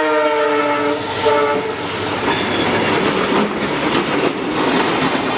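Train horn sounding for about the first two seconds over the steady noise of a moving train, which goes on after the horn stops.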